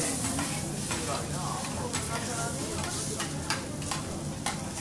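Prawns sizzling on a steel teppanyaki griddle, with sharp metal clicks several times as a knife and fork tap and scrape against the hot plate.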